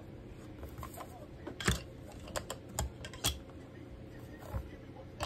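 Hard clear plastic card cases clicking and knocking as they are handled and set down on a desk mat: about six separate sharp taps, the loudest a little under two seconds in.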